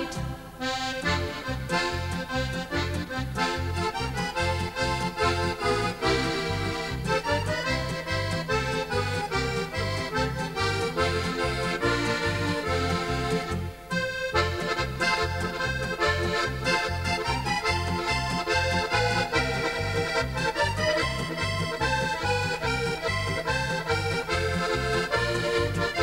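Instrumental break of a cheerful German Volksmusik song: a melody over a steady, regular bass beat, with no singing.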